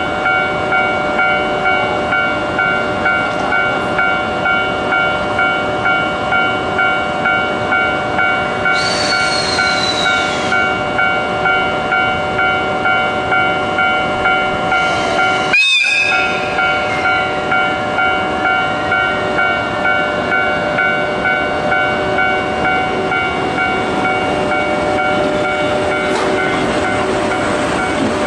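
Railway level-crossing warning bell ringing in steady repeated strokes, with a brief high train horn whose pitch falls at the end, about nine seconds in. Around the middle a sharp sound cuts in and the rolling noise of a passing train takes over.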